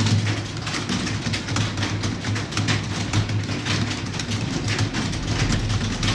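Computer keyboard keys clicking in a quick, irregular stream of typing, over a steady electrical hum.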